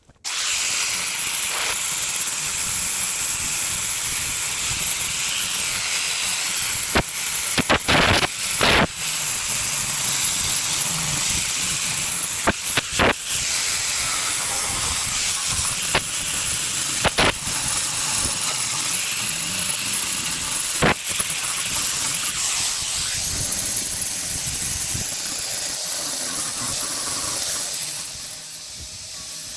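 Angle grinder with a steady high whine, grinding spot welds flat on a welded repair panel on a van sill. It starts abruptly, has several brief louder surges across the middle, and drops in level near the end.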